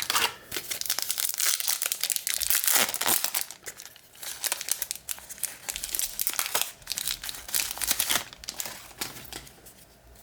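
Crinkling and tearing of a trading-card pack's foil wrapper being ripped open and handled. It is dense for the first few seconds, then comes in shorter crackly spells and fades near the end.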